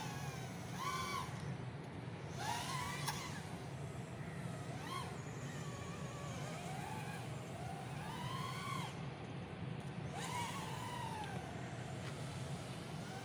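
3-inch FPV micro racer quadcopter's motors whining in flight, the pitch rising and falling in a series of throttle punches every few seconds, over a steady low rumble.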